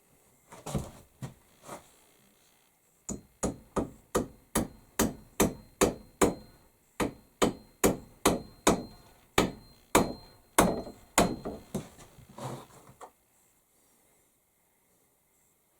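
Hammer blows driving a wedge into the axe handle: a few light taps, then a steady run of about twenty strikes, roughly two a second, that stops short of the end.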